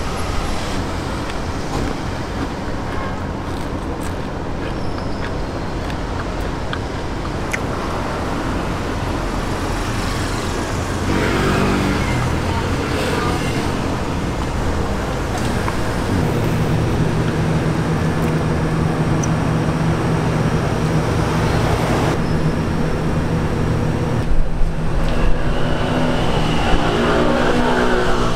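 Road traffic noise: a steady rumble of passing vehicles, with a nearby engine drone growing louder about halfway through and its pitch rising near the end.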